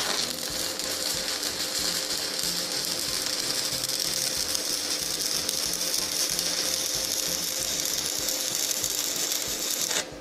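Electric arc welding: the arc's steady crackling hiss, struck at the start and broken off abruptly about ten seconds in.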